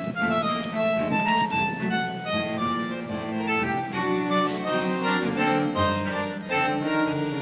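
Instrumental background music, a melody of held notes over steady accompaniment.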